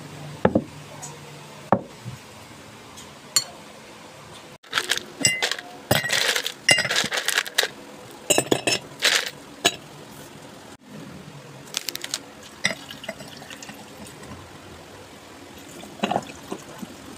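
Thick glass beer mugs clinking and knocking as they are handled and set down on a table, with a dense run of clinks in the middle. Near the end, beer is poured from a bottle into a glass mug.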